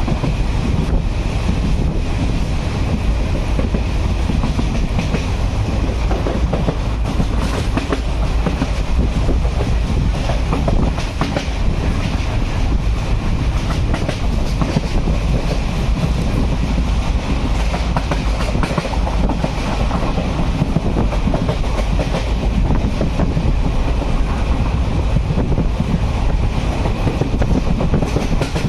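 Train running on the line: a steady heavy rumble with the wheels clicking and clattering over the rails.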